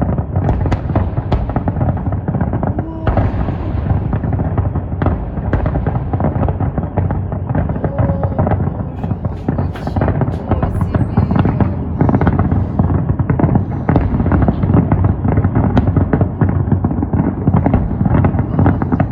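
Fireworks display: a dense, continuous barrage of overlapping bangs and crackles with no break.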